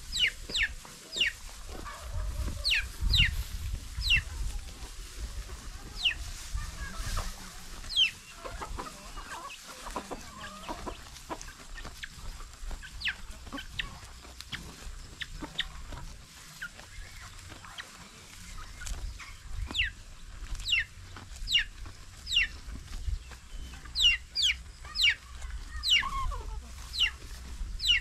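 Birds chirping: short, high calls that fall quickly in pitch, coming in runs of several at a time, with a low rumble underneath at times.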